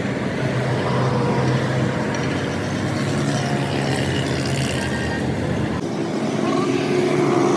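An engine running steadily with a low hum; its deepest part drops away about six seconds in.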